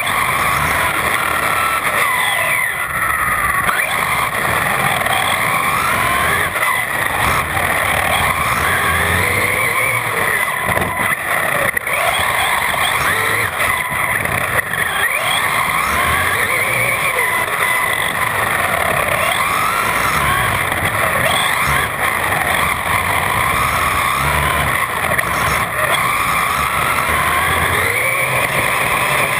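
Brushless electric RC car heard from on board while driving hard. The motor and drivetrain whine rises and falls over and over with the throttle through the corners, over steady rumbling tyre and road noise.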